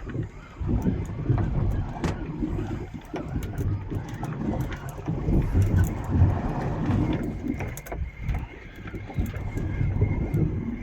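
Low rumble aboard a fishing boat at sea, rising and falling in gusts, with scattered knocks and clicks. A faint steady whine comes in about six seconds in.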